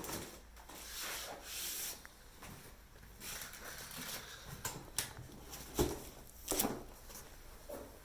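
Packaging being handled during unboxing: irregular rustling and scraping, with a few sharp knocks about six seconds in.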